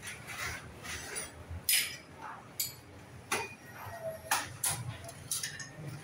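Scattered sharp clicks and light clinks of small hard objects, about six spread over a few seconds, as tools and parts are handled during an installation.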